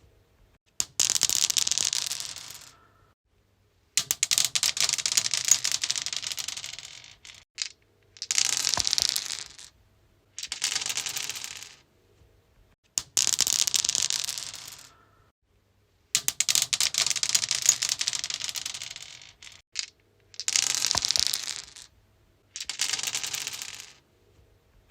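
Dice rolled again and again on a stone surface: each roll is a quick clattering run of hard clicks that fades as the dice settle, about ten rolls with short silences between them.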